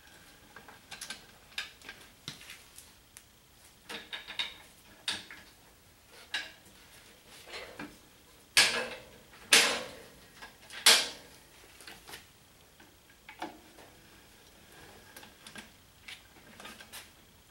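Metal parts and hand tools clinking and knocking during hand work on a Ford 8N tractor's split transmission, with three loud metallic clanks in a row near the middle, each ringing briefly.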